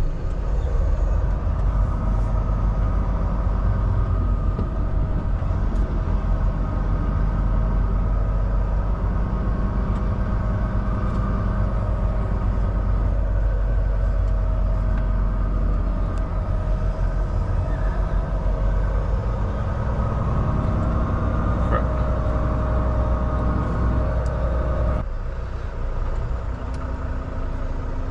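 Semi truck's diesel engine running at low speed, heard from inside the cab as the truck rolls slowly through a turn; the engine note settles lower about three seconds before the end.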